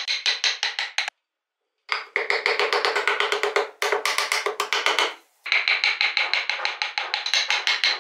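Rapid, evenly spaced wooden tapping, about six strikes a second, from a chisel being worked into hardwood. It is broken by two abrupt cuts and a denser, continuous stretch of chisel work in the middle.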